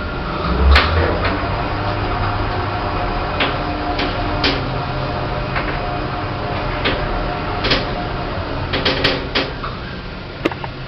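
Otis Gen 2 lift running, with a steady motor hum and whine lasting several seconds, and scattered clicks and knocks from the car and doors. A cluster of knocks comes near the end.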